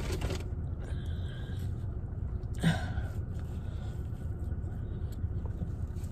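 Steady low rumble inside a car, with one short breathy mouth noise, a sharp intake or bite sound, about two and a half seconds in while a glazed twist donut is eaten.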